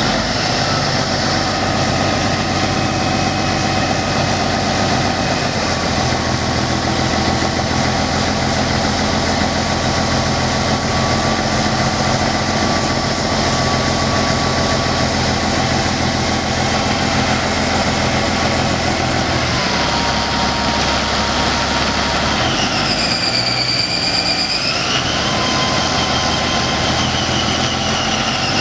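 Caterpillar 3406 inline-six turbo diesel in a Peterbilt 379 dump truck idling steadily. About 23 seconds in, a high whine dips in pitch and comes back up.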